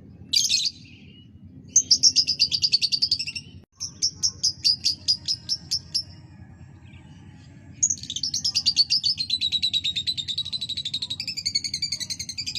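Lovebird song: a short high chirp near the start, then rapid chattering trills about two and four seconds in, and a long unbroken trill from about eight seconds in. A steady low hum lies underneath.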